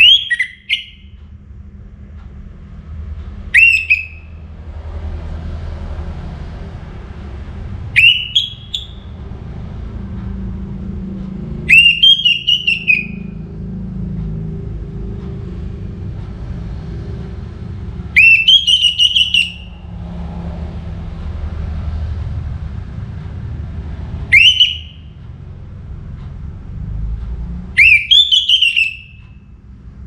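Male orange-headed thrush singing loud whistled phrases, seven times a few seconds apart. Each phrase sweeps sharply upward, peaks and falls away within about a second.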